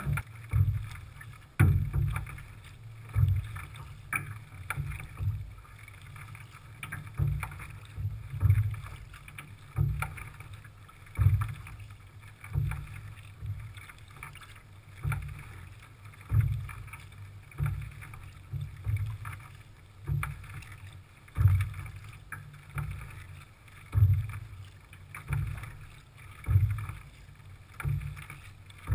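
Kayak paddle strokes from the Zegul Baidarka kayak carrying the microphone: a dip and splash of the blade about every second and a quarter, each stroke with a low thump, over light wind hiss.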